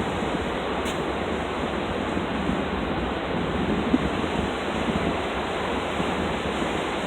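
Pacific Ocean surf breaking and washing up the beach: a steady, even rush of noise, with some wind buffeting the microphone.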